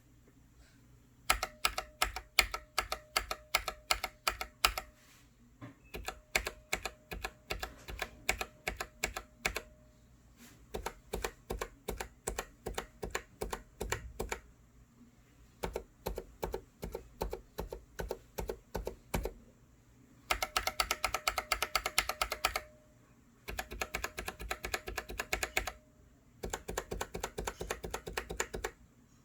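Typing on Gateron brown tactile mechanical keyboard switches: sharp keystroke clicks in about seven separate runs with short pauses between them, the last three runs faster and denser.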